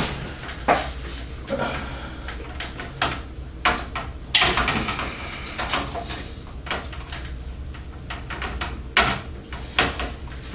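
Irregular clicks, knocks and short scrapes of a computer motherboard being shifted into place against the metal motherboard tray and I/O shield of a PC case, while it is lined up with the standoff holes.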